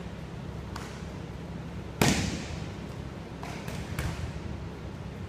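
A person thrown in a jujitsu takedown lands on a wrestling mat with one sharp thud about two seconds in, echoing in the large gym. A few faint taps of feet and bodies on the mat come around it.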